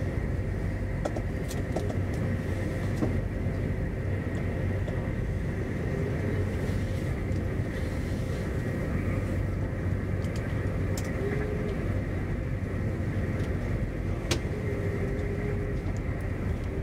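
Interior running noise of an SJ X40 double-deck electric train at speed: a steady low rumble and hum, with a few sharp ticks.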